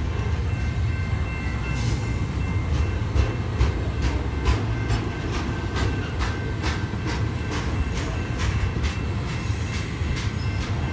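Double-stack container train's well cars rolling past: a steady low rumble of steel wheels on rail, with a run of sharp clicks, about three a second, from about two seconds in to near the end, and a faint steady high ringing over it.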